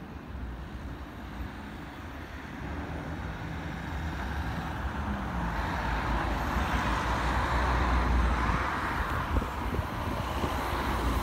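Road traffic: a steady low rumble, with a vehicle's tyre and engine noise building louder from about halfway through as it draws closer.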